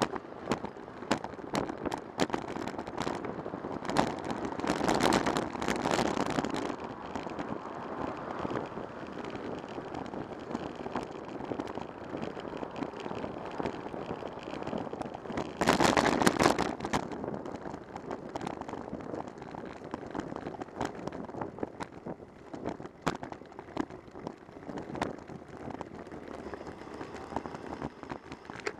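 Bicycle riding along a city street: steady road and wind noise with frequent light clicks and rattles. Two louder surges of noise come about four to seven seconds in and again around sixteen seconds.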